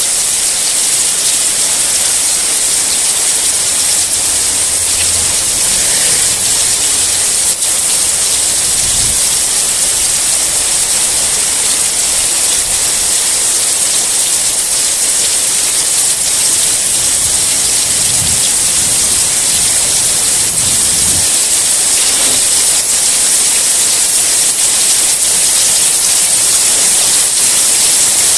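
Steady heavy rain, an even hiss strongest in the high range, with a few faint low rumbles about a third of the way in and again past the middle.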